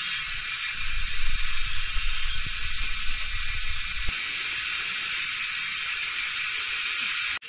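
Steady high-pitched hiss of outdoor ambience, with low rumbling on the microphone from about one to four seconds in.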